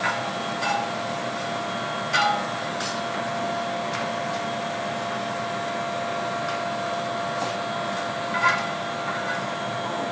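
Steady noisy drone of a glassblowing studio's furnaces and blowers, with a few fixed hum tones in it. A handful of sharp clicks and taps of the glassblower's iron tools on the glass break through, the plainest about two seconds in and again shortly before the end.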